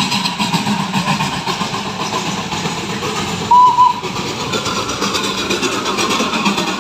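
Darjeeling Himalayan Railway toy train running as it approaches, with a short two-note horn toot about halfway through.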